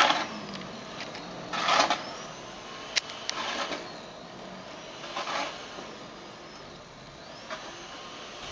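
Snowblower engine running at a distance as a faint steady hum. Three short noisy swishes break through it, with a sharp click about three seconds in.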